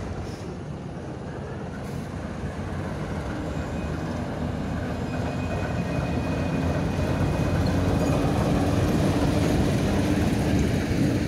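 TEM2 diesel-electric shunting locomotive running light at low speed, its diesel engine growing louder as it approaches and passes close by, loudest near the end. A faint thin whine rises over it for a few seconds midway.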